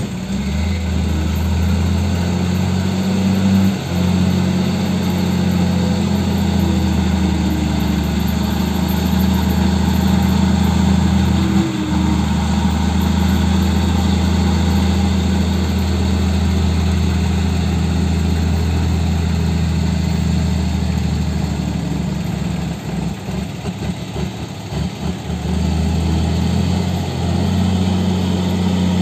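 Heavy diesel engines of a crawler bulldozer and dump trucks running at a steady speed while the dozer pushes mud, a loud, even low drone that wavers for a few seconds near the end.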